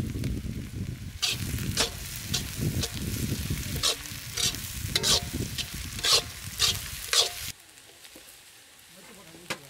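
Onion masala frying in oil in a kadai, stirred with a spatula that scrapes and clinks against the pan about twice a second. The sound cuts off sharply about seven and a half seconds in, leaving only a faint background.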